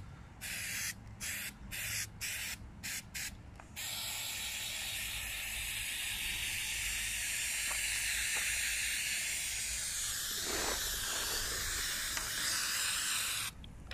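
Aerosol can of foaming paint stripper spraying: several short squirts in the first few seconds, then one long continuous spray of about ten seconds that stops shortly before the end.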